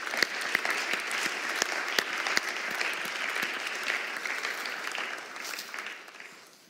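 Applause: many people clapping hands together, which tails off and dies away near the end.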